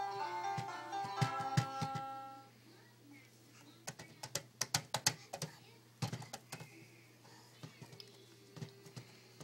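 Electronic baby activity cube toy playing a short electronic tune that stops about two and a half seconds in, followed by a scatter of clicks and knocks as its buttons are pressed and the cube is handled.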